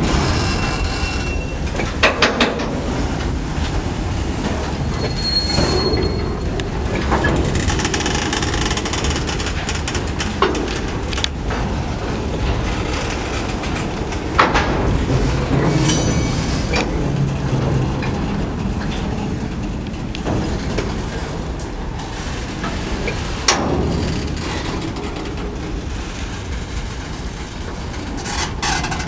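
Open freight gondola wagons rolling past at close range: a steady rumble of steel wheels on the rails with occasional sharp knocks. A brief high-pitched wheel squeal comes about five seconds in.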